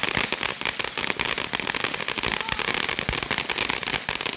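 Fireworks crackling: a dense, continuous run of sharp pops and cracks, many per second, with no pauses.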